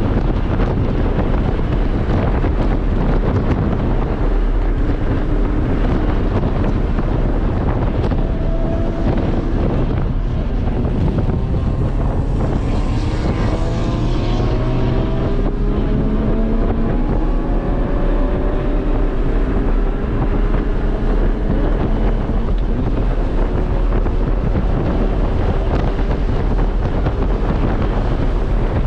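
R53 Mini Cooper S's supercharged four-cylinder engine running hard at track speed, heard inside the cabin under heavy wind and road noise. The engine pitch climbs steadily several times through the middle stretch as the car accelerates.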